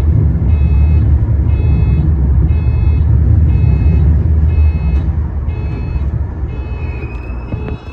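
Shizuoka Railway A3000-series electric train braking to a stop: the low rumble of the wheels and running gear holds steady, then fades away over the last three seconds. A high beep repeats about once a second throughout.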